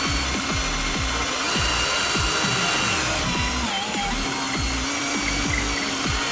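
An electric drill whining steadily while boring holes for switches in a shifter handle plate, its pitch dipping briefly a couple of times as it loads up, under background electronic music with a steady thumping beat.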